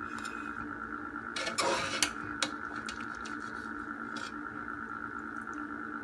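Metal spoon scooping and turning cooked biryani rice in a stainless steel pot: a short scrape about a second and a half in, then a few light clicks of metal against the pot. A steady hum runs underneath.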